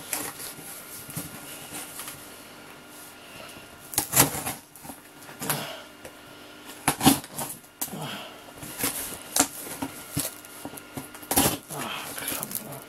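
Scattered knocks, clicks and rustles of objects being picked up and moved about on a desk, over a faint steady electrical whine.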